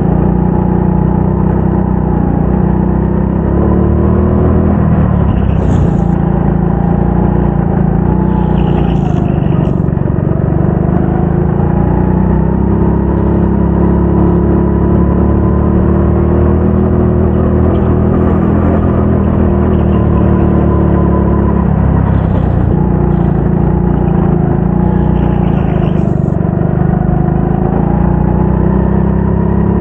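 Go-kart engine running hard through laps of a race, its pitch dropping and climbing again several times as the kart slows for corners and accelerates out of them.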